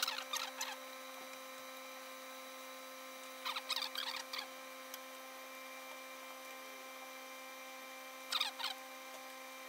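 Large tailor's shears snipping through a mink coat's satin lining in three short spells: at the start, around four seconds in, and again near the end. A faint steady hum runs underneath.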